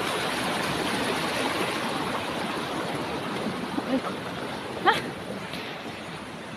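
Steady rush of a nearby forest stream, slowly fading, with a brief rising call about five seconds in.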